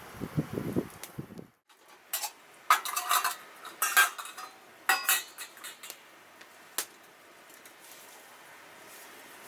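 Metal camp cookware and cutlery clinking and knocking together: a cluster of sharp ringing clinks, loudest around the middle, then one last clink after a short pause. Before them comes a second and a half of low rustling that cuts off abruptly.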